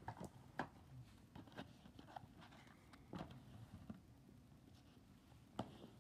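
Faint handling of a DVD box set: several soft clicks and taps from the plastic disc trays and case as they are opened and touched. The sharpest clicks come about half a second in and near the end.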